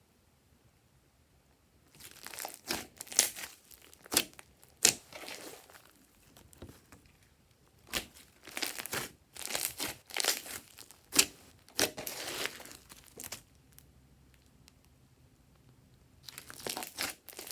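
Glossy slime being squeezed and stretched by hand, giving off bursts of sharp clicks and crackles with quiet pauses between them.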